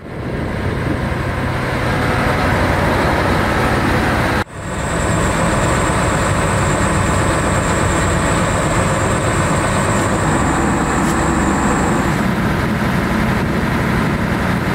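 Wirtgen WR 2500 S soil stabilizer's diesel engine running, a steady heavy machine noise, with a thin high whine over it from about four seconds in until about twelve seconds.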